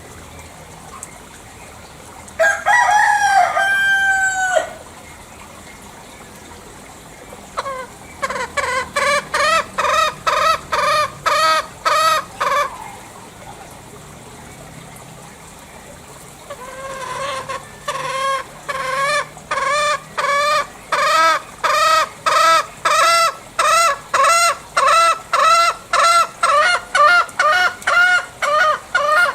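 Green junglefowl calling: one drawn-out call of about two seconds near the start, then long runs of short, quick repeated cackling notes, about two or three a second.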